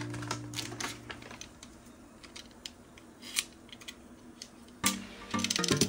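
Scattered light clicks and ticks of hands handling a bath ball and its plastic wrapper. Background music fades out early and comes back near the end.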